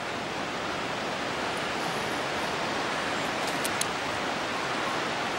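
Steady, even rushing noise of the forest outdoors, with a couple of faint short ticks about one and a half and three and a half seconds in.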